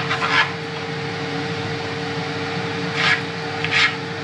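A knife cutting through raw potatoes on a cutting board: a few short scraping cuts at the start and again near the end. Under them runs the steady hum of the airfryer fan as the airfryer preheats.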